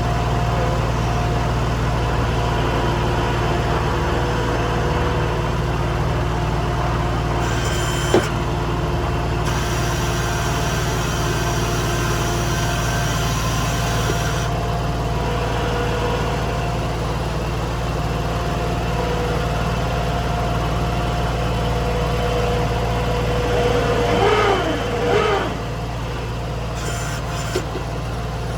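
New Holland skid steer's diesel engine running steadily, with a single sharp click about eight seconds in and a brief wavering whine near the end.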